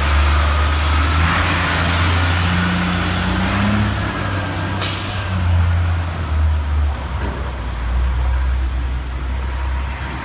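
Diesel engine of a heavy FDNY tow truck running as it pulls past, its pitch rising over the first few seconds as it accelerates, with a short, sharp air-brake hiss about five seconds in.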